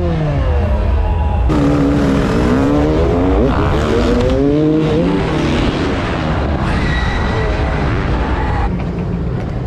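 Freestyle motocross dirt bike engines revving, their pitch climbing and dropping again and again as the throttles are worked.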